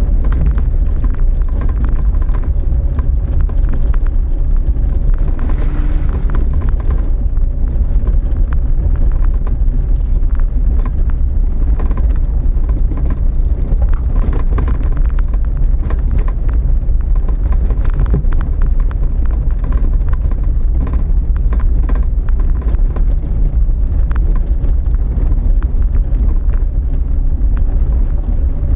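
Off-road 4x4 driving slowly over a bumpy dirt track, heard from inside: a steady deep engine and road rumble with frequent small knocks and rattles from the suspension and body over ruts and stones. A brief hiss comes about six seconds in.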